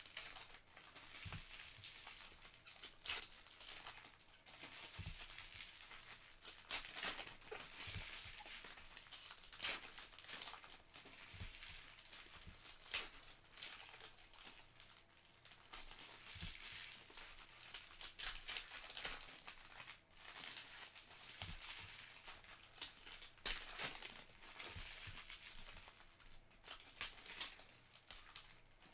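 Foil Topps Chrome trading-card pack wrappers crinkling and tearing as packs are ripped open and handled, with many small sharp clicks and rustles.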